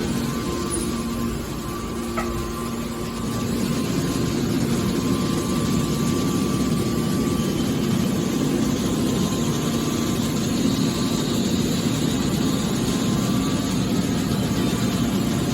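Hydraulic scrap metal baler running: a steady mechanical hum of its hydraulic pump and motor, a little louder from about three seconds in.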